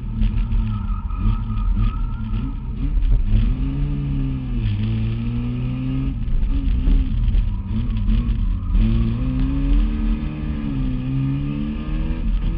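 Race car engine heard from inside the cockpit, revving up and dropping back again and again as the driver accelerates and shifts gears.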